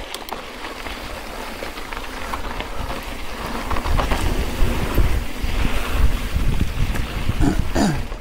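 Wind buffeting the microphone of a handlebar-mounted action camera as a mountain bike rolls along a dirt trail, with the tyres crunching and small clicks of grit; the rumble grows louder about halfway through.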